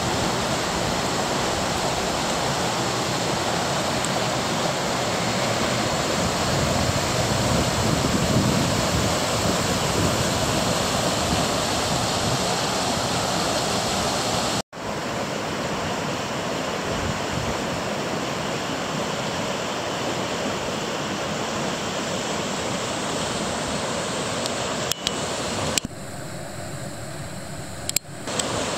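River water rushing in shallow rapids over smooth rock slabs, a steady loud rush. It cuts out for an instant about halfway through and is quieter for a couple of seconds near the end.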